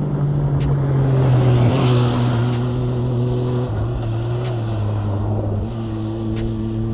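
A rally buggy's engine running, swelling louder around two seconds in as it passes, mixed with background music whose held bass notes change about every two seconds.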